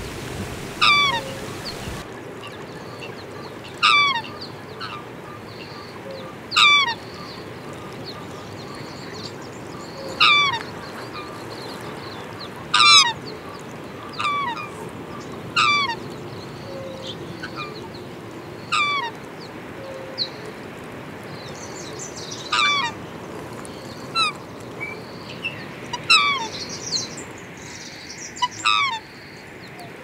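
Black swans calling: short honking calls that fall in pitch, repeated every two to three seconds over a steady background hiss.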